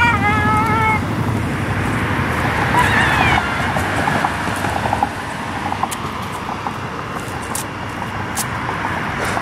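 A passing car's horn sounds once, a steady single-pitch honk lasting about a second, over the rumble of road traffic. A short, wavering high-pitched sound follows about three seconds in.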